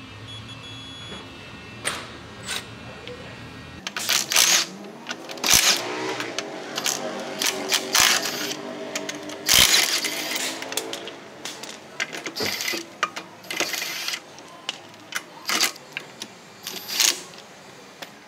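Sharp metallic clicks and clinks of sockets, lug nuts and cordless wrenches being worked on a car wheel. They come in irregular clusters from about four seconds in.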